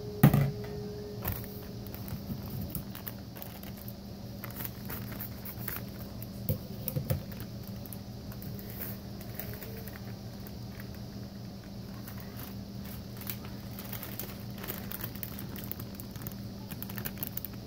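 A plastic food container set down on a glass-top stove with a sharp knock, then a few lighter knocks of handling and the crinkling of a plastic mix bag, over a steady low hum.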